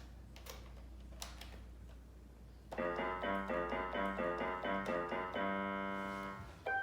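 Keyboard playing a quick run of short, repeated notes, about three a second, then a held chord, with one more short note near the end. It stands in as a sound effect for the mysterious sound.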